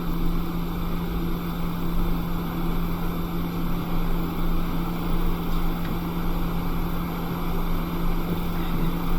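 Hot air rework station blowing steadily, a continuous hiss of air with a low hum, as it heats an iPhone 6S Tristar charging chip to reflow its solder.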